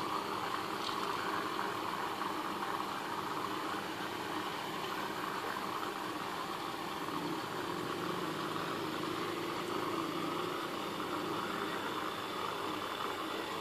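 Aquarium pump running with a steady hum and hiss.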